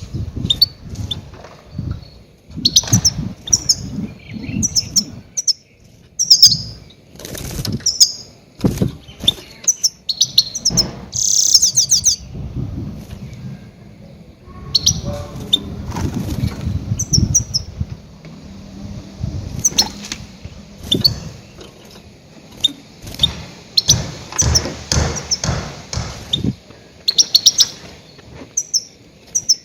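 Goldfinch giving loud, short chirping calls in quick runs, with low fluttering thumps underneath like beating wings.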